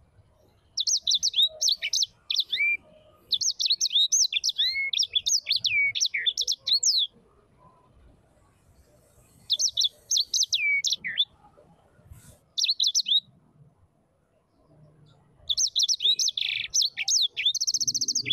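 A bird singing in bursts of quick, high chirps and sweeping notes, each phrase lasting one to a few seconds with short pauses between, the last ending in a fast trill.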